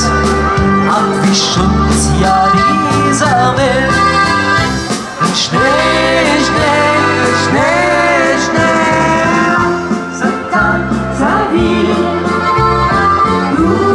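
A live keyboard-and-vocal duo playing through PA speakers: a woman sings a melody into a handheld microphone over electronic keyboard chords and a steady bass line.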